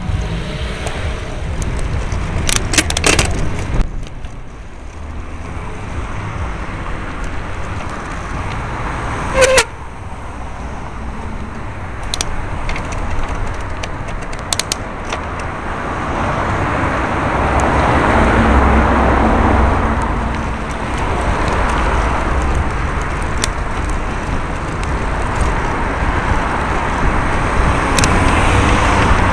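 Road traffic heard from a moving bicycle: cars passing close by over a steady low rumble, with a few sharp clicks and knocks from the bike and its camera mount, the loudest about ten seconds in.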